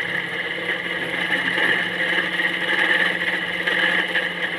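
A motor running steadily with an even, unbroken hum.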